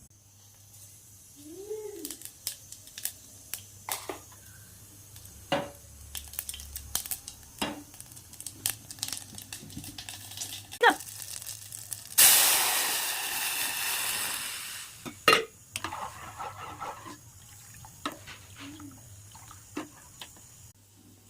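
Kitchen work: scattered clinks and knocks of utensils and cookware, and about halfway through a sudden hissing rush that lasts about three seconds and dies away.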